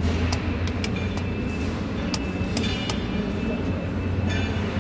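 Sharp clicks of the rotary lock/unlock selector switches on an RMU control panel being turned, about ten in all, over a steady low hum.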